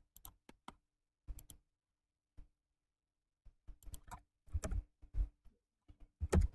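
Computer mouse and keyboard clicks: a few scattered clicks, a short pause, then a busier run of clicks and key presses in the second half.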